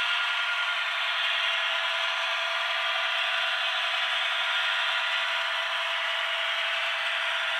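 Heljan OO gauge Class 52 Western model locomotive running past with its DCC sound decoder playing a steady diesel-hydraulic engine sound, mixed with the rolling noise of the model train on the track. The sound is steady and thin, with no bass.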